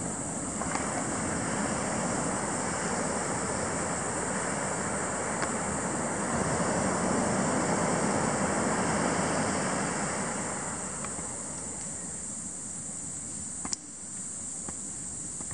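Steady wash of ocean surf with wind on the microphone, swelling louder midway and easing off again. A single sharp click comes near the end.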